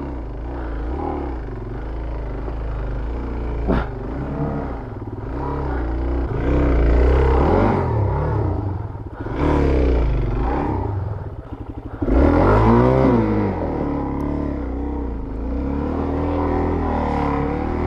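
Suzuki DRZ400S's single-cylinder four-stroke engine revving hard in repeated bursts, pitch rising and falling, as the bike hangs up on its skid plate in a muddy rut.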